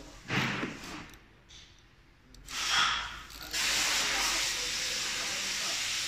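Two short rushes of noise, then a steady hiss that starts about three and a half seconds in.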